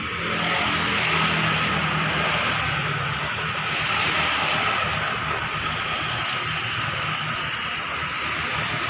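Steady motor-vehicle and street traffic noise, a continuous rumble and hiss that swells twice.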